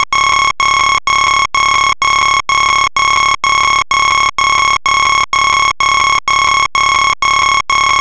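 Alarm clock alarm sounding: a single-pitched beep repeating about twice a second, each beep separated by a very short gap.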